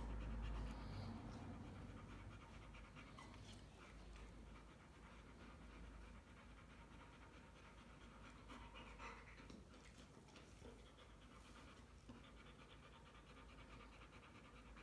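Rottweiler panting with quick, rhythmic breaths, tired after running; louder in the first couple of seconds, then faint.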